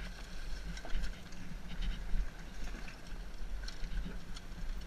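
KTM single-cylinder enduro motorcycle engine running at low revs while the bike picks its way over a rocky trail. Scattered clicks and knocks come from the bike and stones, over a deep wind rumble on the microphone.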